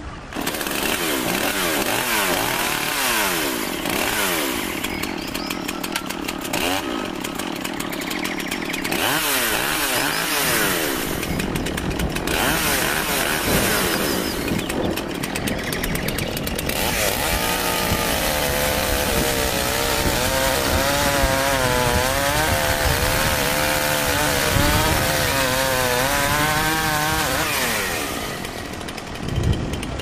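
Chainsaw running, its pitch sweeping up and down over and over as it revs and cuts, then wavering under load. It dies away near the end.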